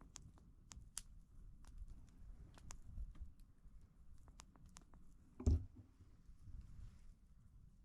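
Faint, irregular small taps and clicks, with one louder knock about five and a half seconds in.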